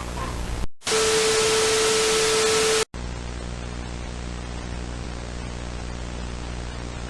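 Electronic static effect: a low buzzing hum with hiss, broken by a loud burst of white-noise static with a steady tone through it for about two seconds, which cuts off abruptly into the buzzing hiss again.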